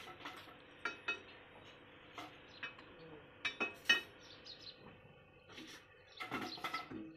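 Scattered sharp metal clinks and knocks as a steel bar and tools are worked against a stationary Ruston Hornsby diesel engine, the loudest about four seconds in; the engine is not running.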